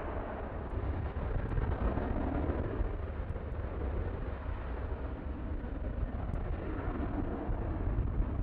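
Jet engine noise from a Boeing 737-800 on the runway, its CFM56-7B turbofans giving a steady low rumble and hiss that swells briefly about two seconds in.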